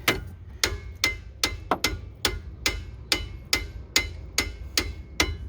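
A hammer striking the metal of the brake assembly in a steady rhythm of about two blows a second, each blow with a short metallic ring.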